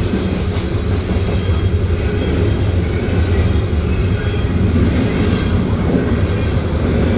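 Loaded coal train cars rolling past, giving a steady, heavy rumble of wheels on the rails.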